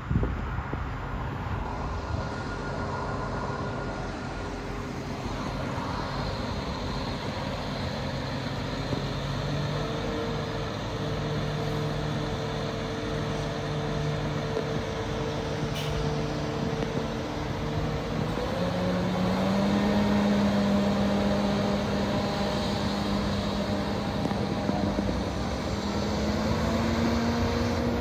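Régiolis regional multiple unit running past and away, its engine note stepping up in pitch twice, about a third and two-thirds of the way through, over steady rolling noise.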